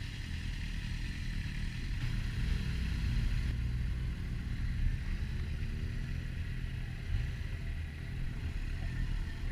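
Onboard sound of a motorcycle being ridden: the engine running under a steady, low rumble of wind and road noise on the bike-mounted microphone.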